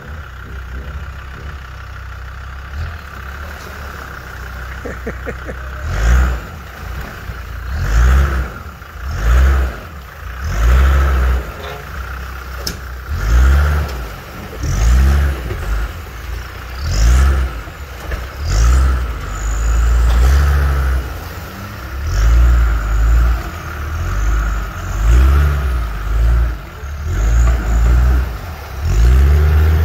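Land Rover Discovery TD5's five-cylinder turbodiesel running steadily for about six seconds, then revved hard over and over, a loud surge roughly every second and a half.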